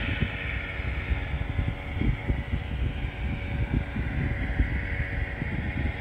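Distant Delta Airbus A320 jet airliner on its landing roll, its engines a steady rushing whine that fades a little mid-way and swells again near the end, under gusty wind buffeting the microphone.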